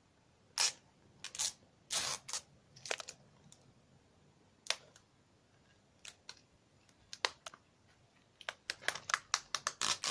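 Hands handling plastic Blu-ray cases and their packaging: scattered clicks and rustles, then a quick run of clicks and taps near the end.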